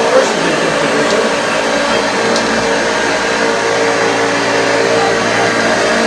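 1981 Hoover Junior U1040 upright vacuum cleaner, a 300-watt machine, running steadily on a shaggy rug with a constant motor hum.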